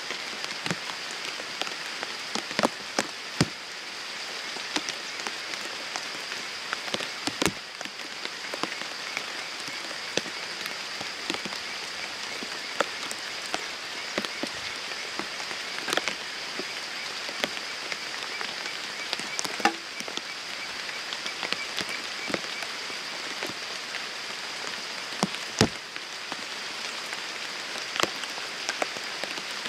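Steady rain falling on a pond and the grass around it, with scattered sharp drops hitting close by. Behind it runs a steady high-pitched calling, joined through the middle by a fast-pulsed trill.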